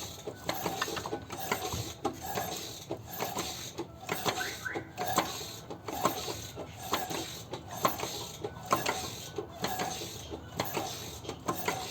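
Ratchet wrench clicking in repeated strokes, about one a second, as a Lexus RX 350's V6 is turned over by hand at the crankshaft to line up the timing marks, with light metallic clicks from inside the engine.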